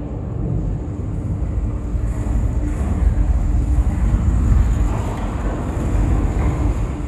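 Deep rumbling ambient sound design with a steady low hum beneath it, part of the cave light installation's immersive soundtrack; it swells toward the middle and eases near the end.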